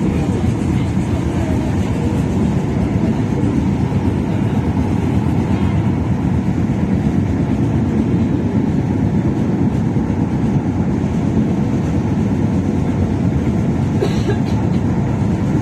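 Tyne and Wear Metro train running, heard from inside the carriage: a loud, steady low rumble.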